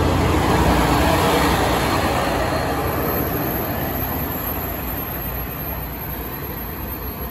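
Red JR West Kiha 40-series diesel railcars pulling away: diesel engines running and wheels on the rails, fading steadily as the train moves off.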